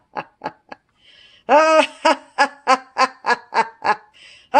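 A cackling villain's laugh for the Joker: short breathy snickers, then about a second and a half in a loud, pitched "ha-ha-ha" at about three a second.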